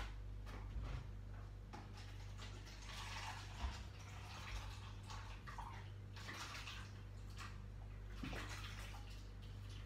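Water being poured from a kettle into a cup, coming in a few separate spells of pouring, over a steady low hum.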